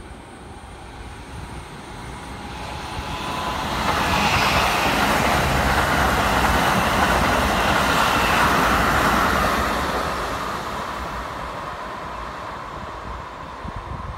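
Keikyu 1000-series stainless-steel electric train passing close by, its wheels running on the rails. The noise builds over the first few seconds, is loudest in the middle, and fades as the train moves away.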